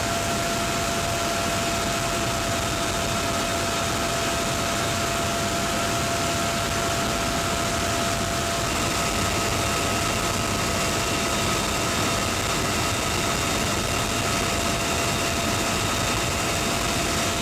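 Turbine helicopter in flight, heard from inside its cabin: a steady rush of rotor and air noise with a constant high turbine whine in two tones.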